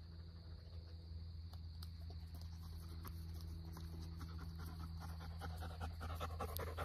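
A dog panting in quick, steady breaths that grow louder and closer toward the end, over a steady low hum.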